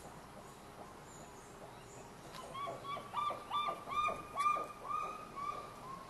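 Great curassow calling: a quick series of about ten short whistled notes, each falling at the end, starting about two seconds in.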